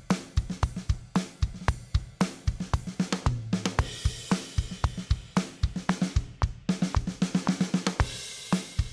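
Background music driven by a fast, busy drum-kit beat with cymbals.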